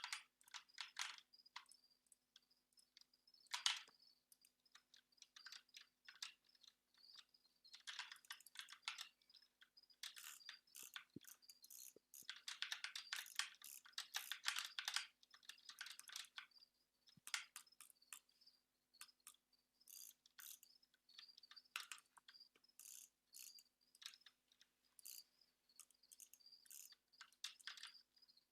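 Computer keyboard keys and mouse buttons clicking quietly, in quick irregular runs of keystrokes with short pauses between.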